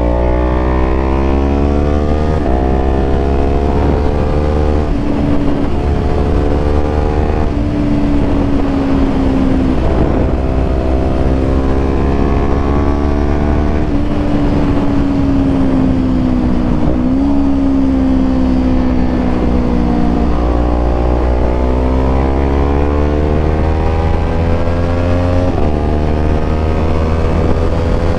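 Motorcycle engine at riding speed. Its pitch climbs in several runs under acceleration, broken by brief dips at the gear changes, with stretches of steady cruising and slowly falling revs as it slows. A steady low rumble of wind runs underneath.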